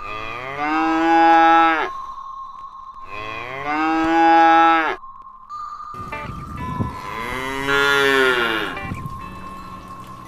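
Cow mooing three times, each a long drawn-out call, the third the longest, with a steady high tone held underneath.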